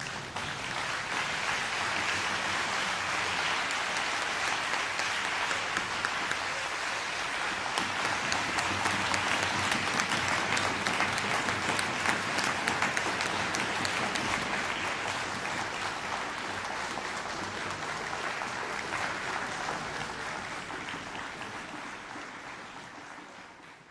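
Audience applauding, building quickly at the start and slowly tapering off near the end.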